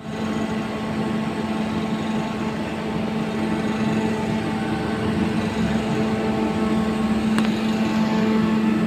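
Air conditioning unit running with a steady hum and fan noise, with a light click about seven seconds in.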